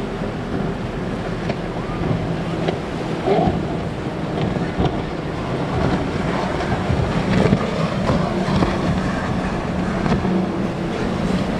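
Powerboat running fast with its outboard engines giving a steady low drone under the rush of spray and breaking waves, with wind buffeting the microphone.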